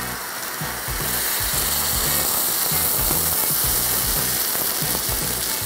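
Boiling water poured into a pan of vermicelli toasted in hot butter: the butter sizzles hard and the water bubbles up in a steady hiss as the boiling water hits the hot pan.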